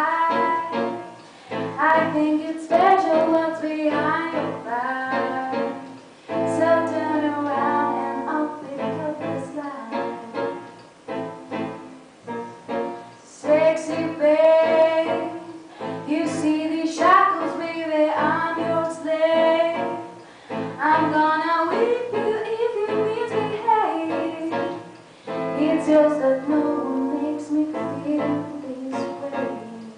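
Song with a woman's singing voice over instrumental accompaniment and a steady beat.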